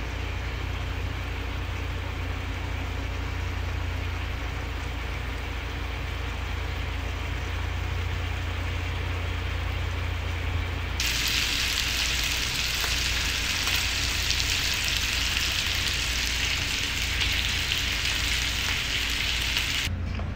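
Salmon fillets frying in sauce in a grill pan, over a steady low hum. About eleven seconds in, a loud steady sizzle starts abruptly and then cuts off suddenly near the end.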